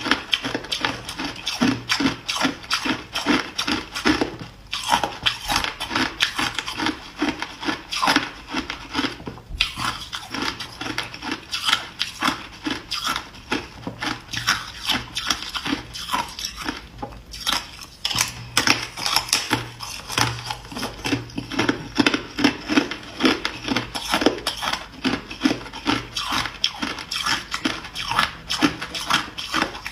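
Hard clear ice being bitten and chewed: rapid crunching, several crunches a second, with brief pauses about a third and a little over half of the way through.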